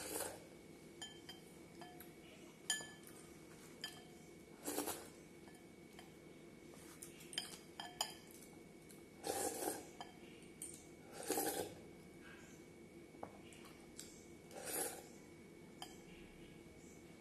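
A glass bowl clinking and tapping, some knocks ringing briefly, mixed with several short slurps as milk is drunk straight from the bowl's rim.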